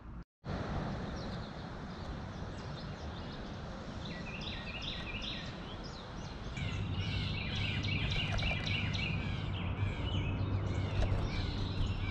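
Small birds twittering in quick runs of short, high chirps over steady outdoor background noise; the chirping starts about four seconds in and gets busier and louder after about six.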